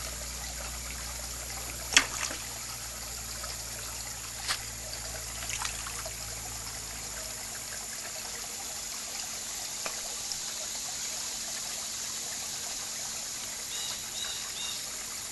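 Pond water trickling steadily, with a few sharp pops and small splashes of koi taking food at the surface; the loudest pop is about two seconds in.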